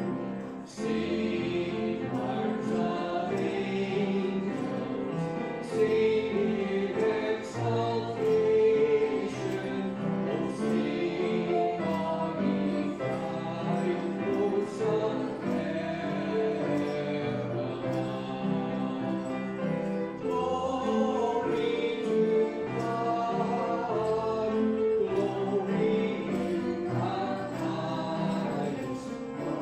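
Voices singing a Christmas carol together to piano accompaniment.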